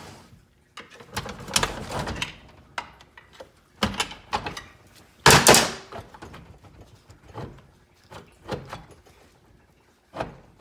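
Metal parts at the front of a 4L60E automatic transmission clanking and scraping as they are worked by hand, with a string of separate knocks and the loudest clank about five seconds in.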